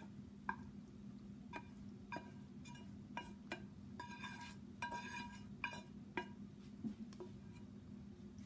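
A utensil scraping and knocking against a frying pan as meat sauce is served out of it: about a dozen short clinks that ring briefly, coming thickest around the middle, over a steady low hum.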